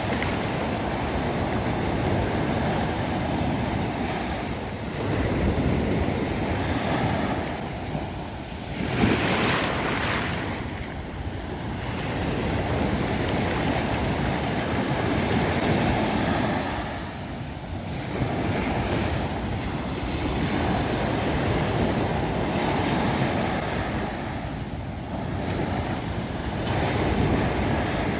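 Sea waves breaking on the shore and washing back in a steady, rolling surge. Louder crashes come about nine seconds in and again near the end.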